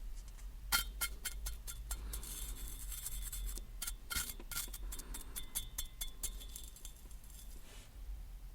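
A quick, irregular series of small sharp clicks and clinks with a faint metallic ring, starting about a second in and stopping near the end, with brief patches of hiss between them.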